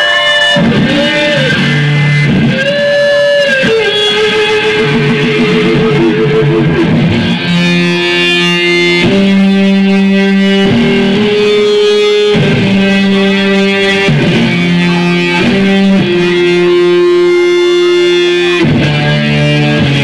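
Rock music with no singing: an instrumental passage led by electric guitar through effects, held notes and chords changing every second or two over a steady low end.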